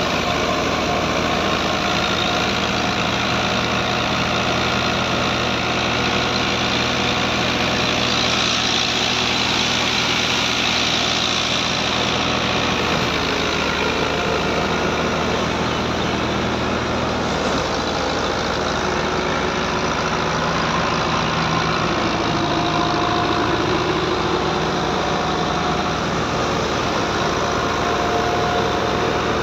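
Tractor diesel engine running steadily under load as it drives a belt-driven wheat thresher. The thresher's spinning drum adds a constant rushing whir over the engine's hum.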